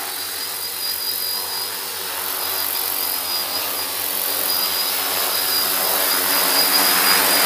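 A large multirotor agricultural spray drone's electric motors and propellers drone steadily as it flies toward the listener, growing gradually louder. It is carrying a half-full spray tank.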